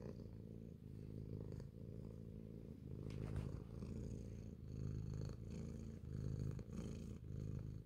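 Calico cat purring while being scratched under the chin, a low rumble that swells and eases in a slow rhythm.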